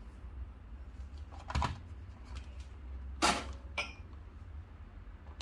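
Sharp clacks of espresso gear being handled on a Quick Mill Rubino: one about one and a half seconds in, then a louder clack followed by a smaller one about three seconds in, over a low steady hum.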